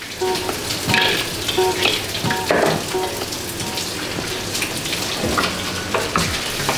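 Food sizzling in hot oil, with stirring and a few clinks of metal utensils.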